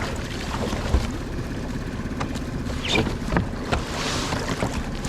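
A kayak on open water: steady wind and water noise on the microphone, with scattered short knocks against the hull.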